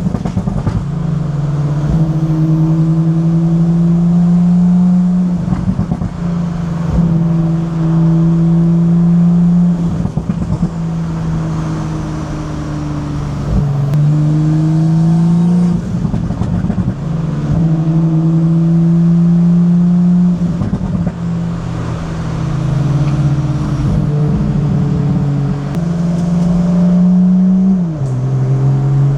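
BMW M340i's turbocharged straight-six engine pulling under load while driving. The engine note climbs steadily, then falls sharply at each of several upshifts, one of them near the end.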